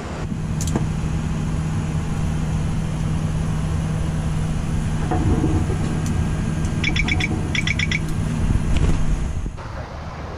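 Boeing 737-800 flight deck ambience: a steady hum of cockpit fans and equipment, with a sharp click near the start. About two-thirds of the way in come two quick bursts of rapid, high electronic beeping from the cockpit alerts. The hum drops away near the end.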